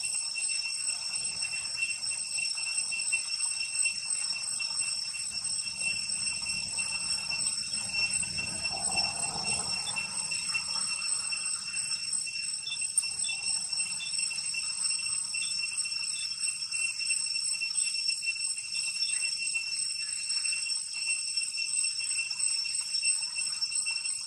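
Steady, high-pitched, unbroken drone of insects such as cicadas, holding one pitch with overtones above it.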